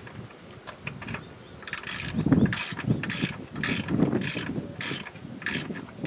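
Socket ratchet clicking in a run of about seven short strokes, starting near two seconds in, as the oil drain plug is tightened back into the bus's oil pan.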